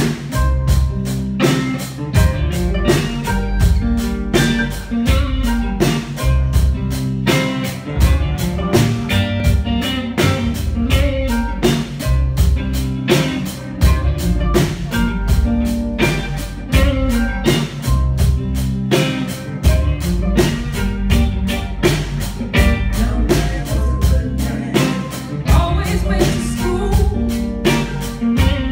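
Live band music: a drum kit keeping a steady beat under guitar and other instruments.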